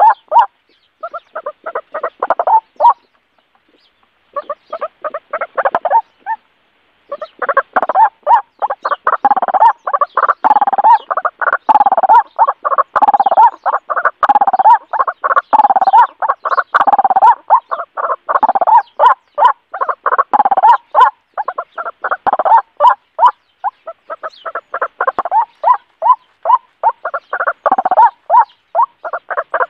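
White-breasted waterhen calls, most likely played through a small portable speaker as a lure: a fast, harsh, croaking run of notes, several a second, broken by short dead-silent pauses in the first few seconds and then almost unbroken.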